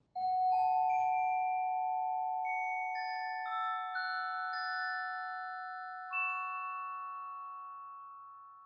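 Glockenspiel played with hard linen-phenolic keyboard mallets: about nine struck notes, mostly climbing in pitch, each left to ring on and die away slowly.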